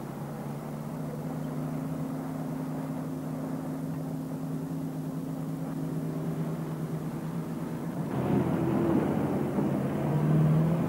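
Off-road jeep's engine running steadily as it drives. About eight seconds in, the sound changes abruptly and gets fuller, then swells louder near the end as the jeep approaches.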